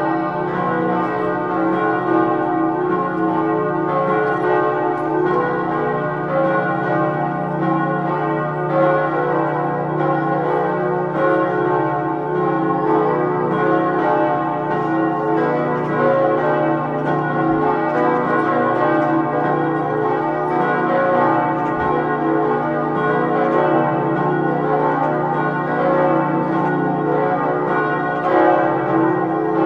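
Full peal of a church's five swinging bells, tuned to B, C-sharp, D-sharp, F-sharp and a high F, ringing together in a continuous, overlapping clang of strikes with lasting hum tones.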